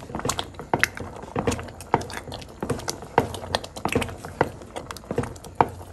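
A wooden spoon stirring thick, oily halva in a pot on the stove, giving irregular knocks and wet clicks, several a second.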